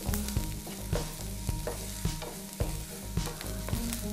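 Chopped onions and green chillies sizzling as they fry in oil in a frying pan, softening, while a wooden spatula stirs them with irregular taps and scrapes against the pan.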